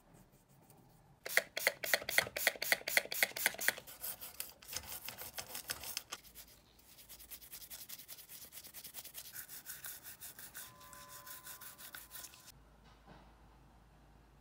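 Stiff brush scrubbing the metal planetary gears and gear-case parts of a Makita 6270D drill's gearbox in rapid back-and-forth strokes, about five a second. The strokes are loud for the first few seconds, then go on more softly and stop near the end.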